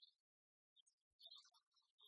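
Near silence, with only faint scattered crackle.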